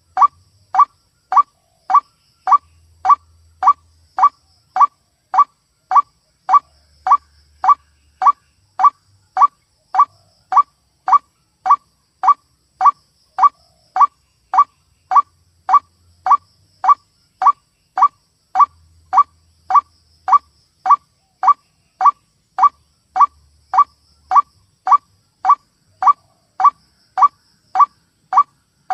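White-breasted waterhen (ruak-ruak) call as a bird-lure recording: one short, harsh note repeated evenly about twice a second without a break.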